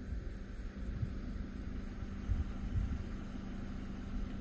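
Night insects chirping high and evenly, about three chirps a second, over a steady high trill. Beneath them runs a steady low hum and rumble, the loudest sound here.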